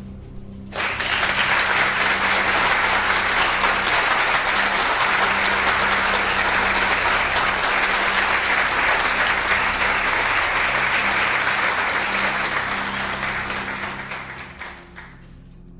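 Canned studio-audience applause in one long, steady round that starts about a second in and fades out near the end, over quiet background music.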